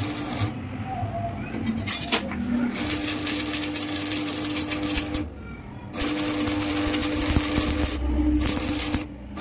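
Stick (shielded metal arc) welding on a steel square-tube frame: the arc crackles and sizzles steadily with a hum running through it. The arc breaks off for under a second about five seconds in and strikes again, then stops briefly once more just before the end.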